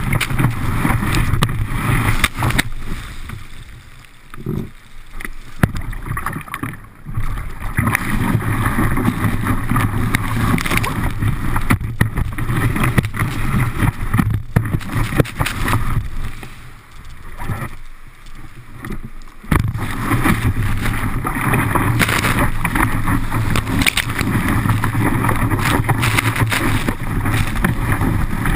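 Water rushing and spraying against a kitesurf board under a board-mounted camera, with wind buffeting the microphone: a loud, steady rush. It drops away twice, for about two seconds each, as the board leaves the water in jumps.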